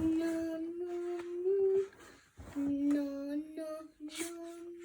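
A woman's voice humming long, nearly steady 'ooh' notes in two phrases with a short break between them, used as a ghostly sound effect in a ghost story.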